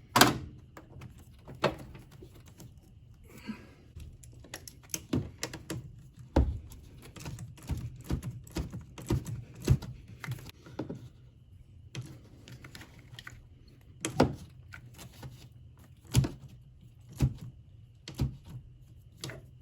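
Irregular clicks and knocks of a socket ratchet and metal parts as the negative cable clamp is fitted and tightened on a new car battery's terminal.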